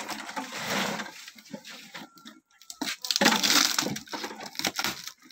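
Plastic and woven sacks rustling and crinkling as someone rummages through them by hand. It comes in two spells, the second louder, with a short lull between.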